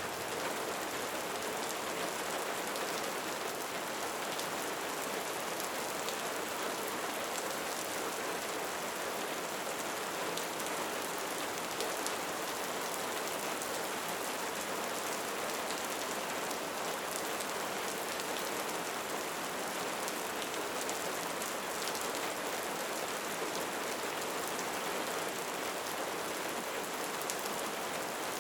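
Steady rain falling and pattering on surfaces, an even hiss dotted with faint individual drop ticks.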